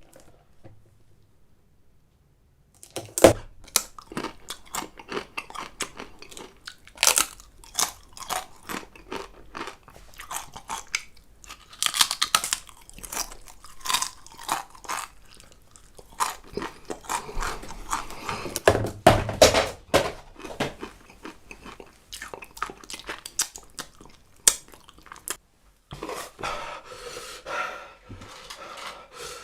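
Close-miked crunchy chewing and biting, mukbang eating sounds: a long run of sharp crisp crunches that starts about three seconds in.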